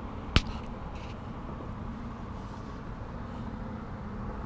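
Steady low engine rumble, with one sharp knock about half a second in and a couple of faint ticks just after.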